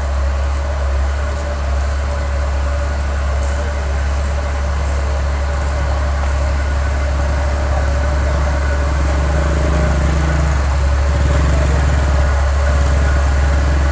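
Komatsu excavator's diesel engine running steadily near idle, running again after standing unused for a long time; it gets slightly louder about two-thirds of the way through.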